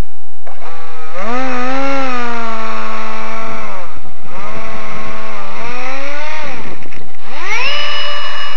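Electric ducted fan of a 70 mm EDF model A-4 Skyhawk jet being run up: a high whine rises, holds, dips about four seconds in and rises again, winds down about six and a half seconds in, then climbs quickly to its highest steady pitch near the end.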